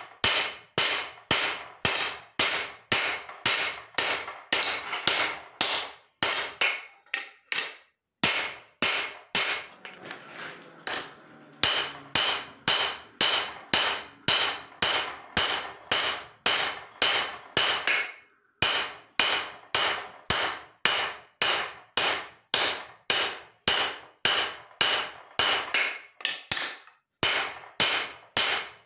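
Hand hammer striking leaf-spring steel on an anvil during forging, steady blows about two a second, each with a short metallic ring. The hammering breaks off briefly a few times.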